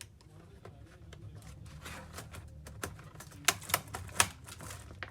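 Small sharp clicks and taps of a laptop's plastic parts being handled and fitted together during reassembly, with three loud clicks close together near the middle to end.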